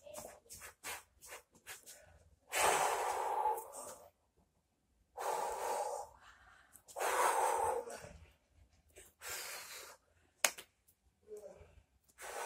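A person breathing out hard in long, noisy puffs of about a second each, five in all, with a run of short quick noises before them and a sharp click about ten seconds in.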